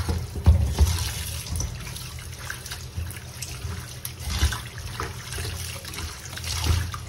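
Tap water running over raw pork pieces as they are rinsed by hand in a perforated colander, with irregular knocks and splashes from handling the meat.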